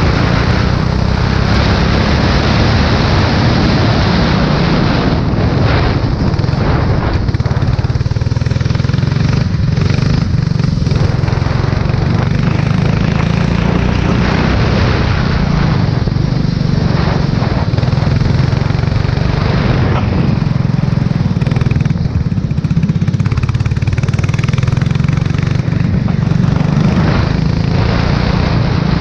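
Formula 4 single-seater race car's engine running hard at speed on a wet track, a steady low drone with a dense hiss over it and a few brief dips.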